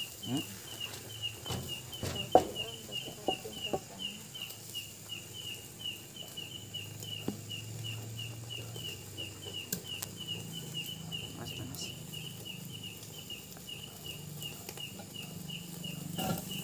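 Charcoal fire being fanned by hand with a fan guard, giving a low whooshing flap of air, with a few sharp clicks in the first few seconds, the loudest about two seconds in, as the grill and skewers are handled. An insect chirps steadily, about three chirps a second.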